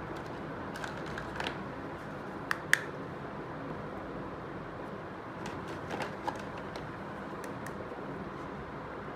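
Small sharp clicks and taps of miniature toy kitchen pieces being handled, the loudest a quick pair about two and a half seconds in and another cluster around six seconds, over a steady background hiss.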